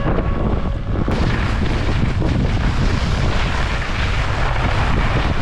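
Strong wind blasting across the microphone: a loud, unbroken low rumble and rush of gale-force wind.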